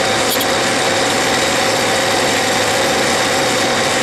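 Clausing metal lathe running steadily, its spindle spinning the aluminium workpiece, with a steady whine.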